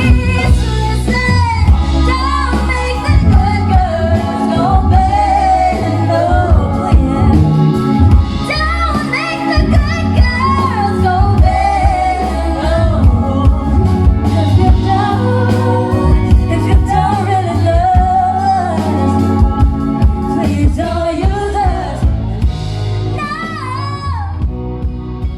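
A live band plays while a singer sings long, gliding, ornamented lines over heavy bass and regular drum hits.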